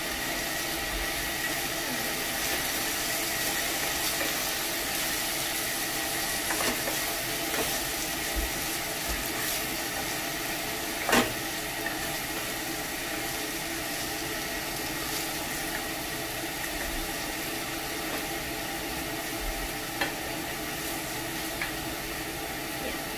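Chicken pieces and chicken liver sizzling as they fry in a pot, stirred with a wooden spatula that knocks against the pot a few times, most sharply about eleven seconds in.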